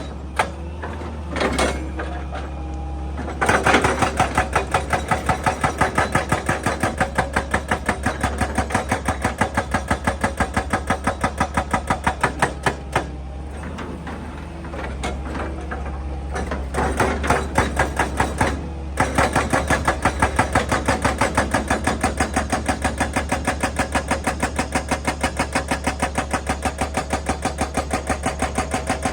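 Excavator-mounted hydraulic breaker hammering in a fast, steady rhythm of sharp blows over the excavator's running engine. The hammering eases off a few times and stops briefly just before 19 seconds in, then picks up again.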